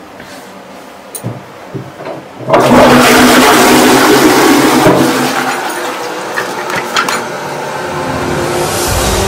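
A few small paper rustles, then about two and a half seconds in a toilet flushes with a sudden loud rush of water that slowly dies away.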